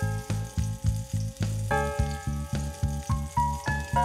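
Background music with a quick steady beat and held chords, over the sizzle of onion, garlic and white wine in a non-stick pot being stirred with a silicone spatula.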